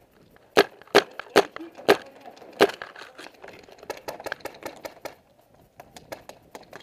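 Paintball markers firing: five sharp single cracks spaced about half a second apart in the first three seconds, then a scatter of fainter pops and ticks.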